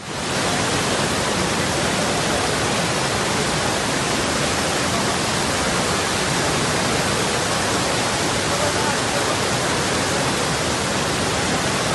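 Fast-flowing floodwater rushing through a street: a steady, even rush of water noise with no breaks.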